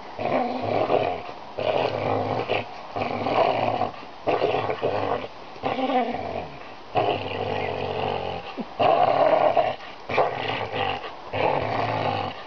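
Pit bull play-growling in repeated bouts, about a dozen growls one after another with short breaks for breath, while she hangs by her teeth from a fishing buoy.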